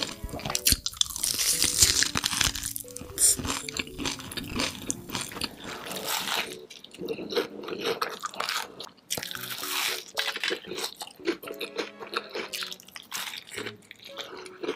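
Close-miked biting and chewing of fried chicken crusted in crushed Hot Cheetos and dipped in cheese sauce: crisp crunches of the coating, thickest in the first half, over soft background music.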